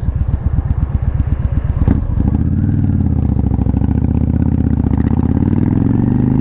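Yamaha XVS650 bobber's air-cooled V-twin engine pulling at low revs, then from about two seconds in revving up steadily as the motorcycle accelerates in gear.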